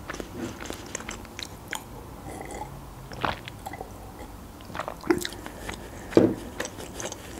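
Close-miked mouth sounds of chewing homemade pizza: scattered wet clicks, with a few louder ones. About halfway through she takes a drink from a glass of juice.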